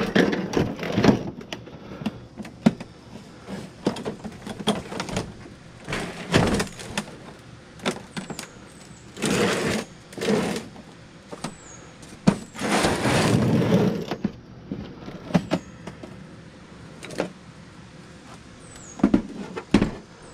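A flat-screen TV's plastic back panel being turned and shifted on a concrete slab: irregular knocks and clicks with several longer scraping slides of plastic on concrete.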